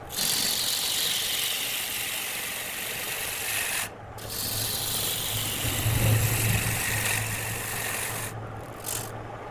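Wood being worked on a lathe: a steady rasping hiss of a tool rubbing against the spinning wood, with the lathe motor's low hum coming in about halfway. The rasping cuts out briefly twice.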